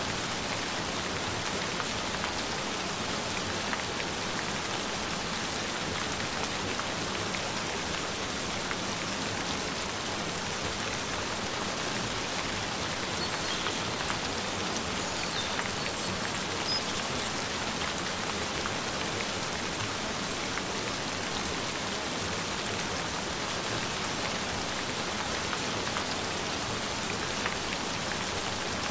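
Gentle rain falling steadily: an even hiss flecked with fine drop ticks.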